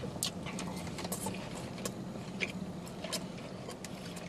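Chewing and straw-sipping in a quiet car cabin: scattered small clicks and mouth noises over a steady low hum.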